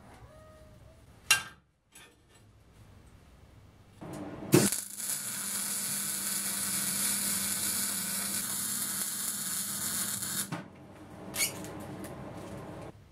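Electric arc welding on scrap steel: a sharp pop as the arc strikes, then about six seconds of steady crackling, sizzling hiss that cuts off suddenly.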